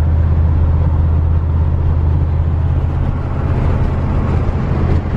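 Steady road and engine noise inside a moving vehicle's cabin: a low drone under an even hiss of tyres and wind.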